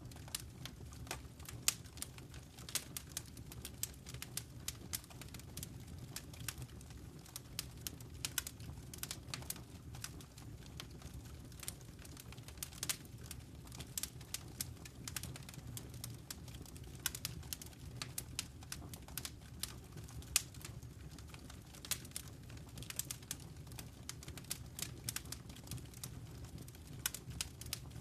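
Fireplace fire crackling: frequent, irregular sharp pops and snaps over a low steady rumble of the flames.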